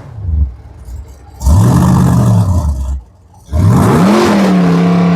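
V8 Hotstox stock car engine revved twice, each rev rising and then falling in pitch, with a short drop back between them; the second rev climbs higher and holds near the end.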